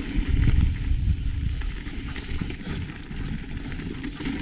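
Mountain bike riding fast down a rough dirt trail: wind rumbling on the camera microphone, with the tyres crunching and the bike rattling and knocking over rocks, loudest about half a second in.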